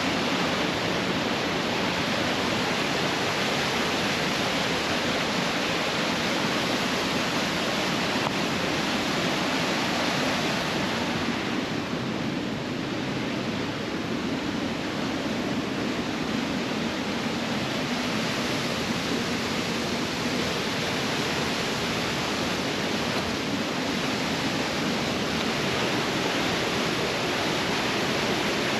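Large creek waterfall pouring with a steady, thunderous rush of water.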